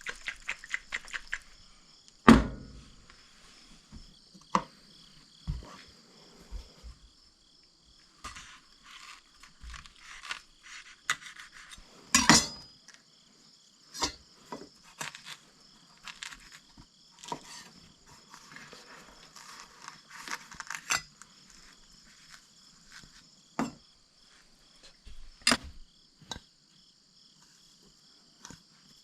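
Kitchen utensils and dishes clinking and knocking in irregular, scattered strokes during food preparation, a few of them louder knocks. Insects chirp steadily in the background.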